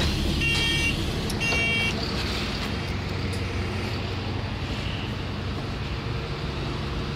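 Alexander Dennis Enviro400 double-decker bus idling at a stop with a steady diesel hum, while its door warning beeps twice, short high tones about a second apart, in the first two seconds.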